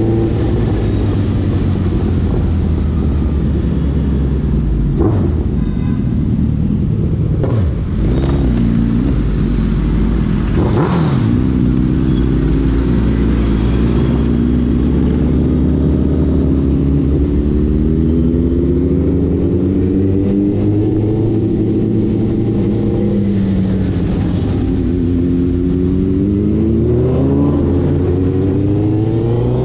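Suzuki Hayabusa Gen3's inline-four engine running through an aftermarket Ixil exhaust while riding, its pitch rising and falling with the throttle. Other vehicles briefly pass with a falling pitch about five seconds in and again around eight to eleven seconds.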